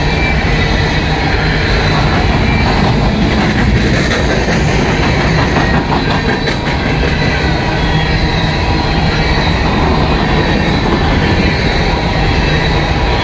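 Empty steel coal hopper cars rolling past close by: a steady rumble of wheels on rail, with a run of clicks over rail joints in the middle and a faint high wheel squeal at times.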